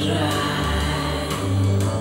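Recorded music played back through open-baffle speakers with Philips full-range drivers, driven by an F2a single-ended tube amplifier: sustained low notes with a few sharp percussive hits.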